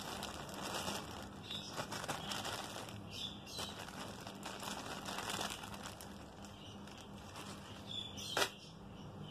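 Clear plastic bag of plastic aquarium air volume-control valves crinkling and rustling as it is squeezed and turned in the hands, with one sharper, louder rustle near the end.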